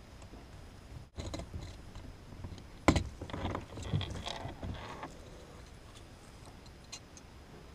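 Small plastic clicks and rattles from handling a car's trunk light housing, with one sharp click about three seconds in.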